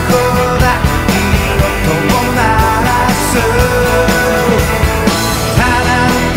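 Rock song playing: a full band with a steady beat.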